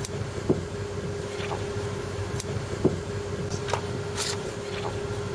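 Steady hum of a tuna purse seiner's machinery and ventilation, holding one constant tone, with scattered light clicks and brief paper rustles as the pages on a clipboard are handled and turned.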